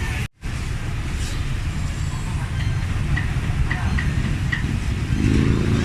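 Steady low rumble of street traffic, with light short ticks over it. The sound cuts out completely for a moment just after the start.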